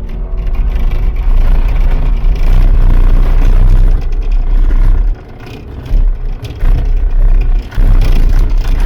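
Cat 299D compact track loader's diesel engine running hard under load, loud and low, easing off briefly about five seconds in and again near the end, with some clattering from the machine.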